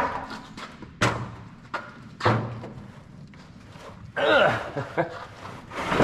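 A wooden prop stick and the engine bonnet of a John Deere self-propelled sprayer clunking against the steel bodywork as they are handled: a few sharp knocks in the first two and a half seconds and another at the end, with a brief wavering sound about four seconds in.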